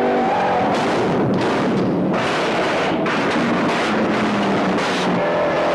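V8 muscle cars, a Ford Mustang among them, running flat out at high speed, engines at high revs over heavy road and tyre noise, broken by several sharp bangs about a second apart.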